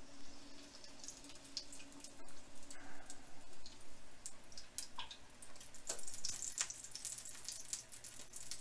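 Hot oil sizzling and crackling in a frying pan around a low-carb egg roll as it shallow-fries and is turned with a spatula. The pops come thicker in the second half.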